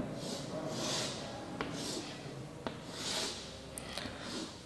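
Chalk drawing lines on a blackboard: a series of soft scraping strokes, roughly one a second, with a few light taps of the chalk against the board.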